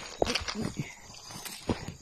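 Footsteps through grass and undergrowth: a handful of short, sharp rustles and scuffs over a low rumble.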